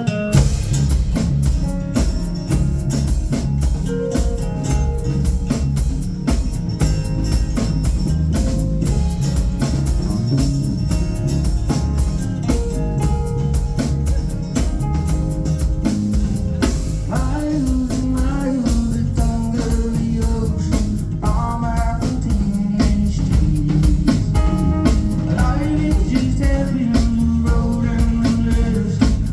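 A live band playing a rock song, with a drum kit keeping a steady beat, guitar and a singing voice.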